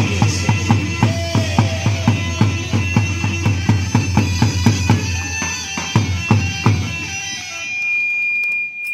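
Iraqi chobi dance music: a zurna (mizmar) playing a reedy melody over a large double-headed tabl drum beaten with a stick in a steady quick rhythm. Near the end the drum stops and the zurna holds one long high note.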